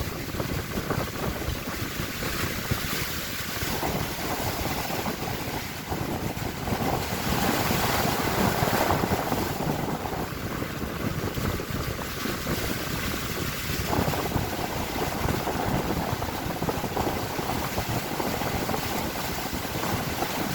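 Strong sea wind buffeting the microphone, with waves washing against a boat, a dense, steady rush that swells a little around the middle.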